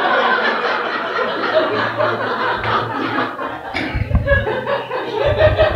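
Audience laughing and chuckling together in response to a joke, many people at once. A low thump about four seconds in and another near the end.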